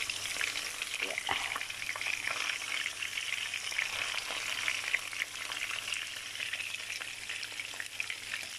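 Skin-on salmon cubes shallow-frying in hot oil in a pan: a steady crackling sizzle with many small pops.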